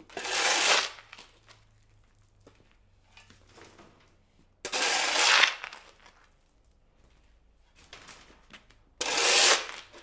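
Shovel blade scraping across concrete as it is driven into a pile of dirt: three harsh scrapes of about a second each, spaced about four and a half seconds apart, with faint scuffs of soil between them.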